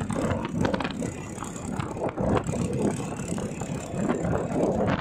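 Vehicle on the move over a rough track: a steady low rumble with rattles and scattered knocks.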